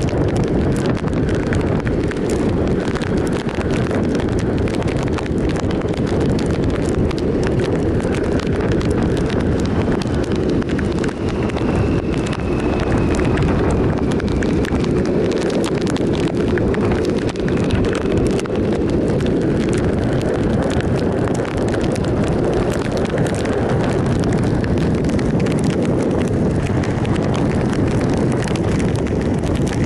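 Triumph Sprint ST 1050 motorcycle riding at steady cruising speed on a wet road: its three-cylinder engine and tyre hiss under heavy wind rush on the microphone, with a scatter of small ticks throughout.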